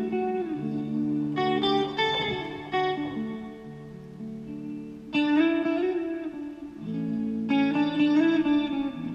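Background music led by plucked guitar, with held low notes underneath and new guitar notes entering every second or two.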